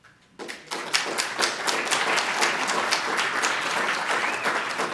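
Audience applauding, the clapping breaking out about half a second in and then holding steady.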